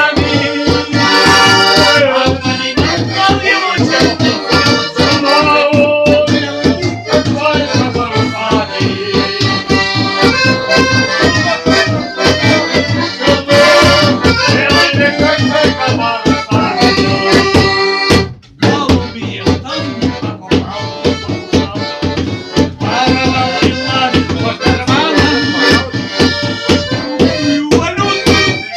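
Piano accordion playing a fast folk tune, with a quick, steady beat knocked out by a bottle on a plastic canister as improvised percussion. The music breaks off for a moment about two-thirds of the way through.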